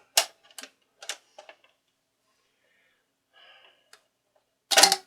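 Record changer of a 1962 Westinghouse record player cycling on its 45 spindle: several sharp mechanical clicks in the first second and a half, then one loud, short clatter near the end. The changer is working.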